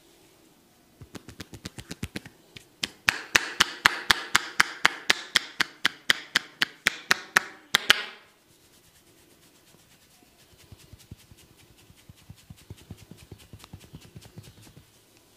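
Indian head massage percussion: hands striking a person's head in a fast, even rhythm of about five strikes a second. The strikes are light at first, then loud for about five seconds before stopping abruptly. Fainter, quicker tapping follows later.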